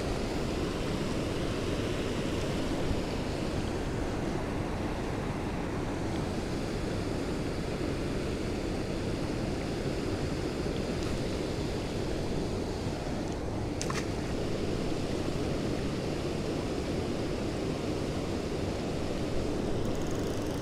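Steady rush of water pouring over a river spillway, with one brief click about two-thirds of the way through.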